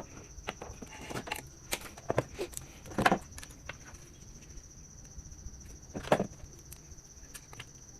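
Light clicks and taps of tools and a circuit board being handled on a workbench, with two louder knocks about three and six seconds in, over a steady faint high-pitched whine.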